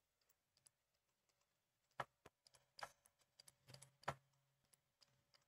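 Near silence broken by a few faint, sharp taps and clicks between about two and four seconds in, the loudest near the end of that stretch: a pen stylus tapping on a drawing tablet while writing by hand.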